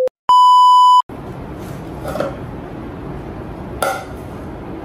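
A loud, steady electronic test-card beep of about 1 kHz sounds for under a second near the start. Then a plastic rice paddle scoops cooked rice from a rice cooker's inner pot into a bowl, with a few light scrapes and knocks against the pot and bowl.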